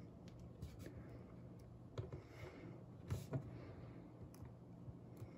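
Faint taps, clicks and light knocks of plastic Toy Biz Spider-Man 2 Super Poseable action figures being handled and stood up on a shelf, the sharpest about two seconds and three seconds in.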